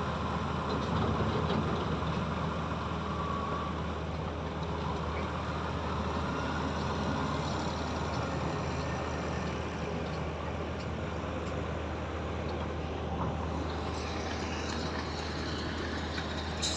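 Heavy diesel machinery running steadily with a low, even engine hum, from the concrete pump and transit mixer truck working a concrete pour.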